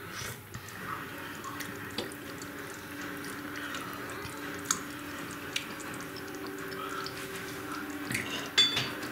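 Pot of stew simmering with small bubbling pops over a low steady hum, and a few sharp clinks of a metal spoon, the loudest with a short ring about eight and a half seconds in.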